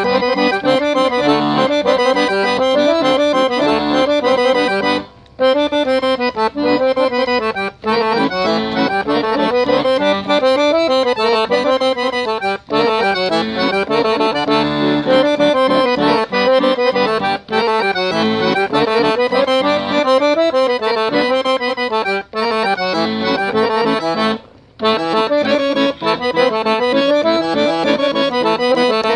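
Piano accordion (Weltmeister) playing a tune solo, a moving melody line over a lower accompaniment, with two very short breaks in the playing.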